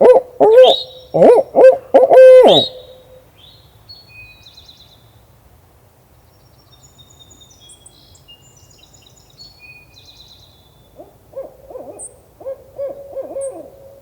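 A loud barred-owl 'who-cooks-for-you' hooting series, imitated by a turkey hunter as a locator call to shock a gobbler into gobbling. Small songbirds chirp faintly afterwards, and about eleven seconds in a quieter owl-like hooting series answers from farther off, an owl rather than a turkey replying.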